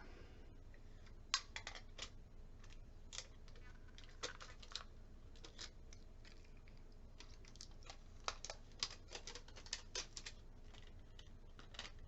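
Irregular light clicks and taps of a small boxed device and its packaging being handled and opened, a few sharper clicks among them.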